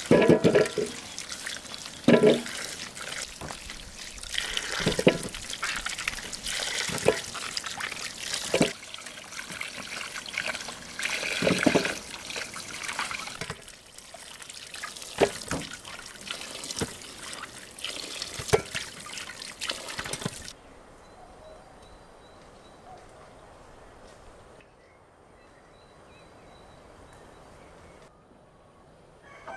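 Running water pours over peeled onions being rinsed by hand in an aluminium basin of water. Splashes and knocks come every couple of seconds as onions drop into the water. About two-thirds of the way through, the water cuts off and only faint outdoor ambience remains.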